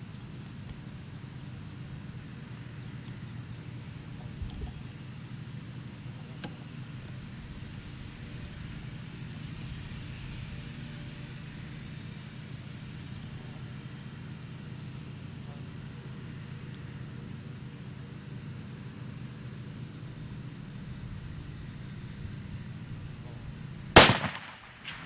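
A single rifle shot near the end from a .45 caliber muzzleloader built on a Remington 700 action with a muzzle brake, after a long stretch of steady background hum.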